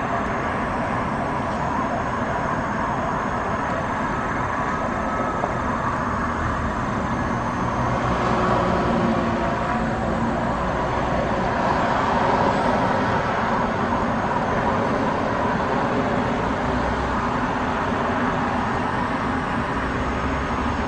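Steady city traffic noise, swelling a little twice, about eight and twelve seconds in.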